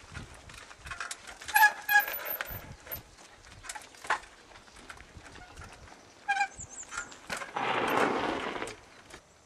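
Trials bike hopping up boulders: irregular knocks and clicks of tyres and frame landing on rock, with short high squeaks around two seconds in and again about six and a half seconds in. A burst of noise about a second long comes near the end.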